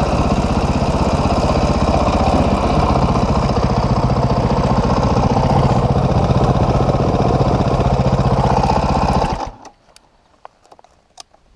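Dirt bike engine running steadily, then stopping abruptly about nine and a half seconds in, leaving only a few faint clicks.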